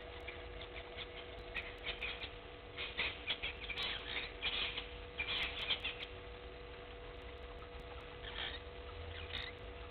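Bursts of short, high chirping bird calls, thickest from about three to six seconds in and again near the end, over a steady electrical hum from the microphone.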